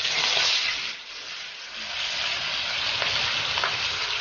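A piece of skin-on fish sizzling in hot oil in a frying pan. The hiss is loudest in the first second as the fish goes into the oil, dips briefly, then settles into a steady sizzle with a few small pops.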